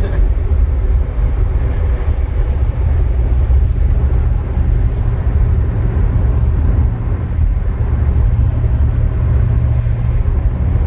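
Cabin noise inside a Holden Gemini at highway speed: a steady low drone from its four-cylinder engine revving its guts out in top gear, because the gearbox has no fifth gear, along with road and drivetrain noise.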